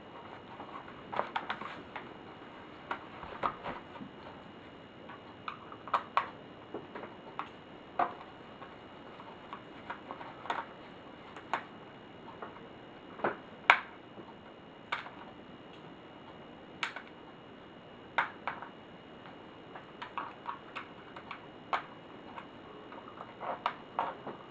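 Irregular sharp clicks and taps of small tools and plastic and metal parts being handled as an HP Pavilion dv6000-series laptop is taken apart, some in quick pairs, with a louder snap about fourteen seconds in. A faint steady high tone runs underneath.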